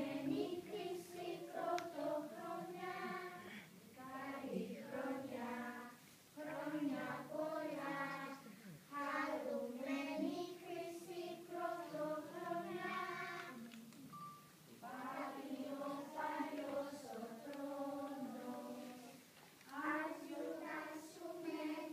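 A group of young children singing a song together, in phrases with short pauses between lines.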